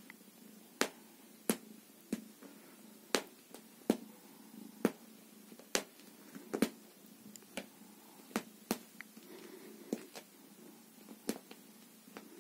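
A cat's claws catching in sofa upholstery fabric and snapping free as it flexes its outstretched front paws, sharpening its claws: sharp, irregular clicks, about one a second.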